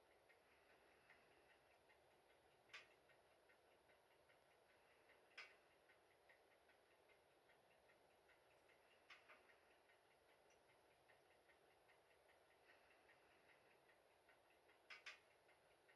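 Faint crackling and ticking of a dying wood fire in a stove-fireplace as it burns down to embers, with a few sharper snaps, two close together near the end.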